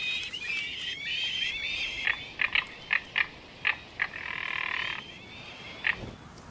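Crested caracara chicks begging with thin, wavering squeals, followed by about six short, sharp calls and a harsh rattling call from an adult caracara about four seconds in.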